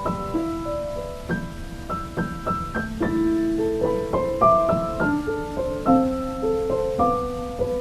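Gentle solo piano music: a slow melody of single notes and soft chords, each note struck and left to ring.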